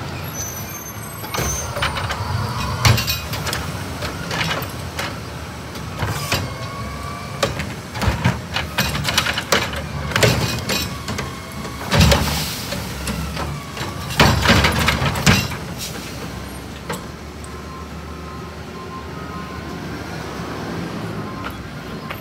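Autocar Xpeditor refuse truck's Curotto-Can arm gripping, lifting and tipping a plastic yard-waste cart over the engine's running, with a string of clatters and loud bangs as the cart is shaken out and knocked against the can. About 16 s in the banging stops and only the truck's engine runs on as it pulls away.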